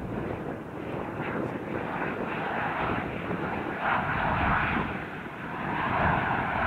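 Twin rear-mounted turbofan engines of a Bombardier Challenger jet running as it rolls out along the runway just after landing: a steady jet rush that swells about four seconds in and again near the end.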